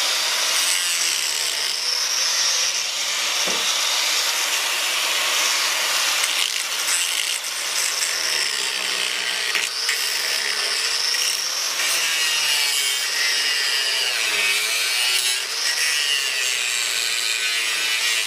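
Corded DeWalt angle grinder with a cut-off wheel cutting into the rusty steel of a pickup truck's frame. It is a continuous high whine over a grinding hiss, and the pitch sags and recovers several times as the disc bites into the metal, most clearly in the second half.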